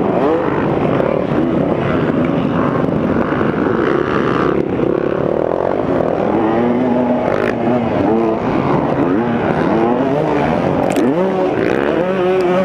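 Single-cylinder two-stroke engine of a 2015 KTM 200 XC-W dirt bike under hard riding, its pitch rising and falling again and again as the throttle opens and closes and the gears change.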